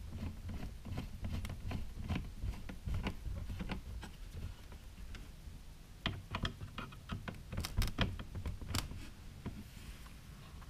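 Light clicks and taps of plastic motorcycle fairing and headlight-mask parts being handled and fitted together. The clicks come in a denser cluster past the middle, over a low steady room rumble.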